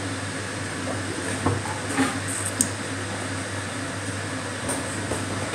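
Steady low hum with an even hiss from running kitchen machinery, with a few soft knocks of things being handled around the middle.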